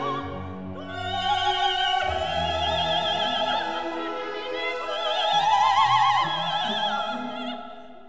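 Classical music: an operatic voice holding long notes with wide vibrato over orchestral accompaniment, loudest about six seconds in and fading near the end.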